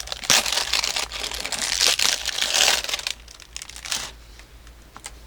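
Packaging crinkling and tearing as it is pulled open by hand: loud rustling for about three seconds, then a few softer crinkles and clicks.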